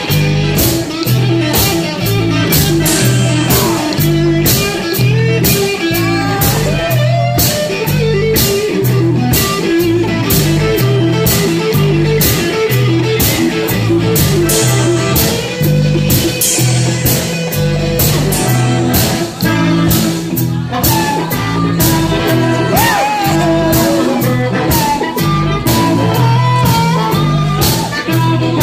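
Live blues band playing an instrumental passage: guitar over a repeating low riff and a steady beat.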